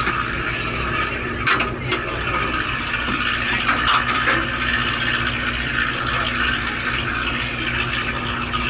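Seawater washing and sloshing against a fishing boat's hull over the steady low hum of its engine, with a few short knocks about one and a half and four seconds in.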